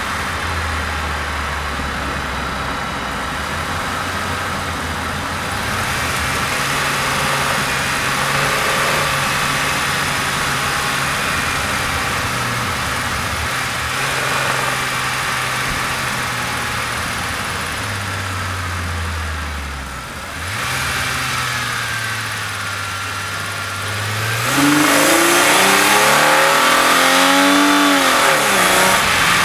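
Holden Commodore VX S II's V6 engine, fitted with extractors and a Redback sports exhaust, heard from the engine bay while driving: a steady engine drone whose pitch shifts up and down a few times as the speed changes. Near the end the throttle opens and the engine gets louder, its revs climbing and then falling back.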